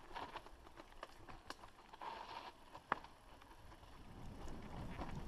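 Mountain bike rolling downhill over a dry dirt trail strewn with leaves, with scattered sharp clicks and rattles from the bike. The low rumble of the tyres on the ground grows louder near the end.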